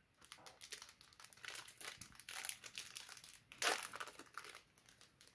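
Wrapper of a trading-card pack crinkling in a run of small crackles as it is handled and opened, with a louder crackle about three and a half seconds in.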